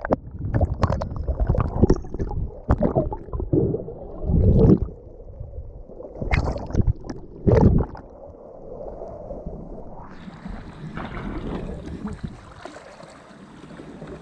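Sea water sloshing and surging over a half-submerged action camera: muffled, irregular thuds and gurgles as waves wash across it. About ten seconds in, the camera clears the water and the sound becomes a steady hiss of surf and wind on the microphone.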